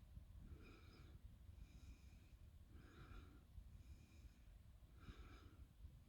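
Near silence: a faint low rumble, with faint short higher-pitched sounds repeating about once a second.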